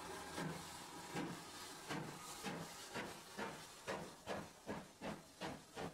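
GWR steam tank engine chuffing as it pulls away, each exhaust beat a puff of hissing steam. The beats speed up steadily from a little over one a second to about three a second as the locomotive gathers speed.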